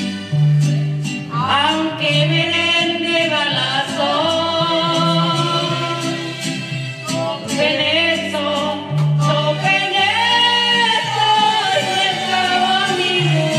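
A woman singing a ranchera-style song into a microphone over amplified musical accompaniment with a steady bass line, holding and sliding between long notes.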